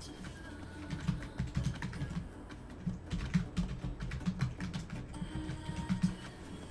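Typing on a computer keyboard: a quick, irregular run of key clicks that starts about a second in and stops near the end.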